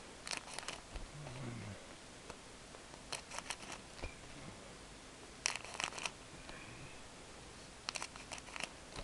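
Scissors snipping through the wrappers of trading-card packs, in four short bursts of quick cuts spaced a few seconds apart.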